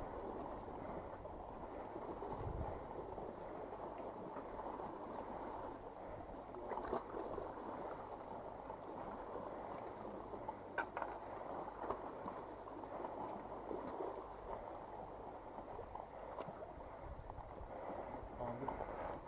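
Sea water washing and gurgling among shoreline boulders, a steady rushing with a few faint knocks.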